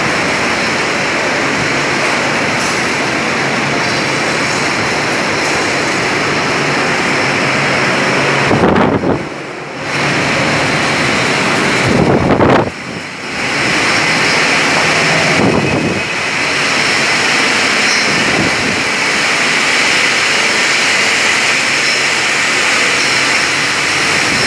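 Loud, steady din of bottling-plant machinery on a factory floor, with a few faint high steady tones in it; the noise drops away briefly twice in the middle.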